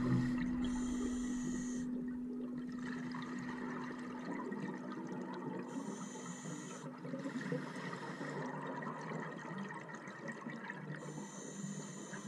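Scuba diver breathing through a regulator underwater: three short hisses of inhalation about five seconds apart, each followed by a gurgling rush of exhaled bubbles.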